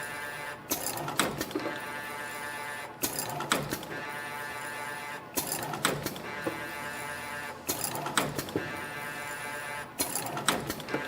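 CNC extension-spring machine making 1.2 mm stainless-steel springs with English hooks, about one spring every two and a half seconds. Each cycle is a steady whine followed by a quick burst of sharp clicks and knocks, repeating about five times.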